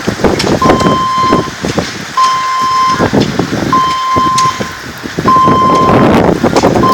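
An electronic warning beep sounds at one steady pitch, each beep just under a second long, about every second and a half. Loud rushing noise with knocks runs under it, strongest at the start and near the end.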